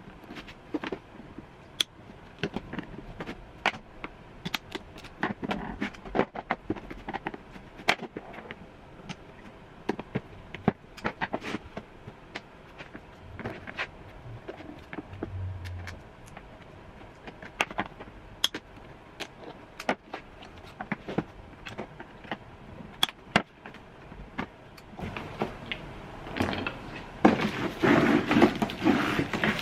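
Scattered sharp clicks and knocks of hands taking parts off a car door trim panel, then a louder stretch of scraping and rustling near the end.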